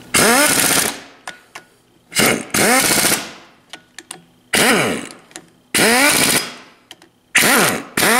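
Impact wrench hammering flywheel bolts down onto the crankshaft flange in five bursts of about a second each, its pitch sliding within each burst. The bolts are only being snugged up, to be torqued properly later.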